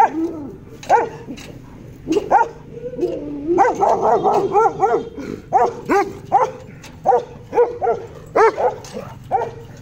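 Dog barking repeatedly in short, sharp barks, about two a second, with a quick run of them about four seconds in.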